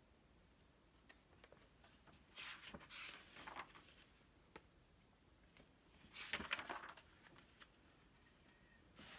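Pages of a large paper picture book being turned and the book closed and handled: two short rustling sweeps of paper, about a second each, with a few light taps between them.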